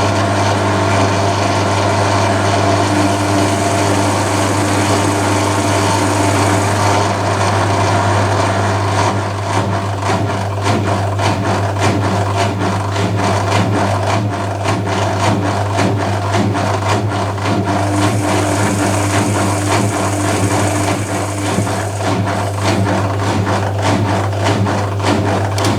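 Privileg Compakt 92 washing machine running, its motor humming steadily. A fast rhythmic rattle joins in from about nine seconds in and fades by about twenty seconds in.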